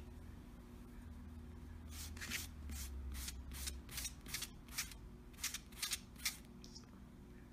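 A cat's claws scratching rapidly and repeatedly at a paperback book on a tabletop, about fourteen quick scratches starting about two seconds in.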